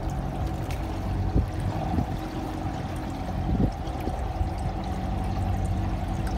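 Water pouring steadily, with an even low mechanical hum underneath.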